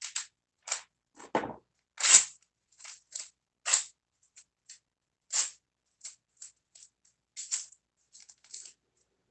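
Scissors snipping and fingers tearing a paper shipping label into small pieces: a string of short, crisp, separate snips and rips, irregular, about two a second.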